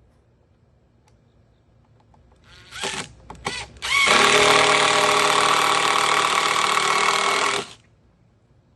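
Power drill driving a screw into the wood of the bench: a few short trigger pulls, then one steady run of about three and a half seconds that stops suddenly.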